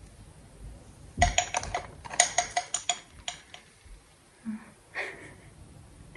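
A measuring spoon tapping against glass while measuring out paprika: a quick run of about ten sharp, ringing clinks lasting a little over two seconds, starting about a second in.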